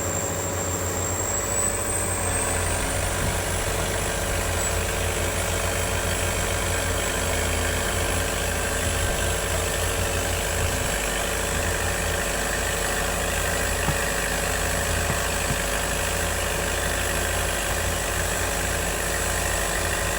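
Heavy diesel engines of hydraulic excavators running steadily, with a thin high whine that rises a little about two seconds in and then holds.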